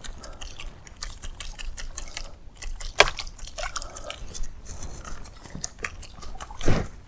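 A fishing lure being retrieved across the water on rod and reel: a run of irregular small clicks and ticks with light splashes, a sharp crack about three seconds in, and a duller thump near the end.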